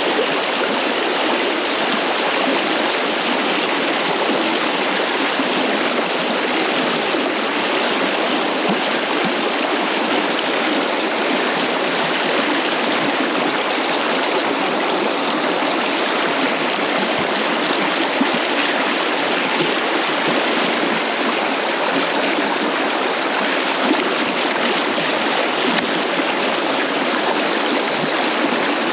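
Fast-flowing river rushing in a steady, even wash: a spate river running high after summer floods.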